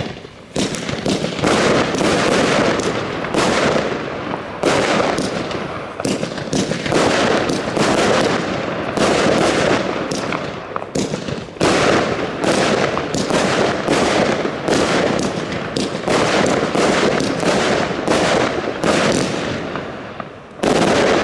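Gaoo 'I Like It' 25 mm fan cake (firework battery) firing: shot after shot launching and bursting in quick succession, with a few brief lulls.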